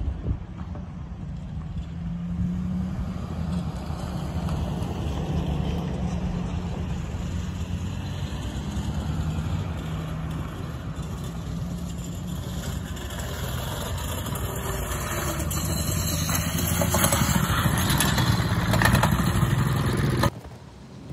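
Scooter-mounted 6.5 hp, 196 cc single-cylinder four-stroke go-kart engine running under way, growing louder as the scooter approaches near the end, then cutting off suddenly.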